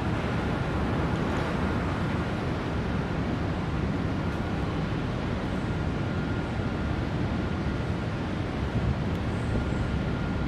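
Steady outdoor rumble of distant vehicles with wind on the microphone, and a faint high whine held steady underneath.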